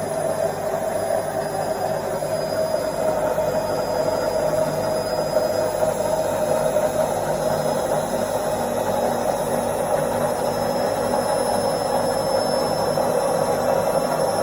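Indesit washing machine in its spin cycle: the drum spinning with a steady whirring hum and a faint high whine.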